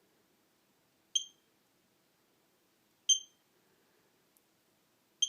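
Alarm-system keypad giving short, high-pitched feedback beeps as its keys are pressed in configuration mode, one beep about every two seconds.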